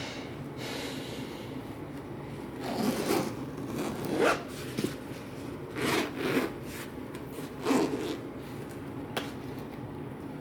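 Packaging or a headphone case being handled during an unboxing: four or five short rubbing, sliding scrapes.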